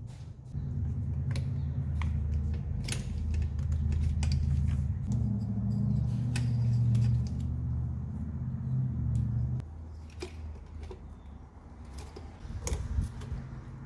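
Sharp plastic clicks and snaps of electrical connectors being unplugged from the 5.3 LS engine's wiring harness, over a steady low machine hum that cuts off suddenly about two-thirds of the way through.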